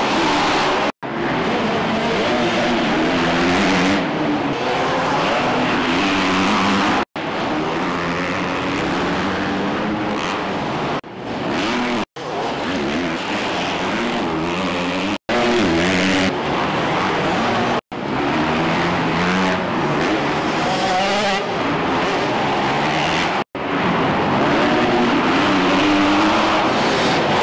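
Motocross bike engines revving up and falling back as riders accelerate and jump, in short stretches that cut off abruptly several times and start again.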